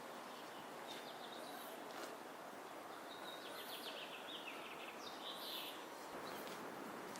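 Faint outdoor ambience: a steady hiss with scattered high, short bird chirps and trills.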